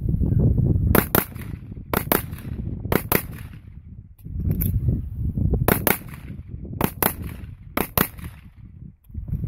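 Short-barreled .308 AR-10-style rifle (Battle Rifle Company BR308, 12.5-inch barrel with muzzle brake) firing double taps: six pairs of shots about a second apart, with a pause of about two seconds after the third pair.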